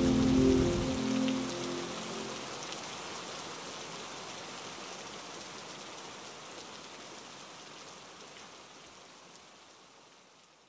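Steady rain falling, fading out slowly until it is almost gone. A few held music notes die away in the first couple of seconds.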